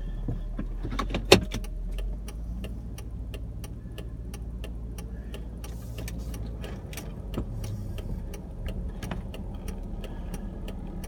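Car interior noise while driving: a steady low rumble with a light ticking about three times a second. A sharp click about a second in is the loudest sound.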